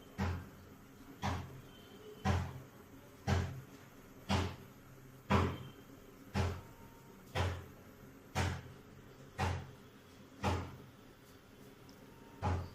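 Regular dull knocks about once a second, each a short low thud.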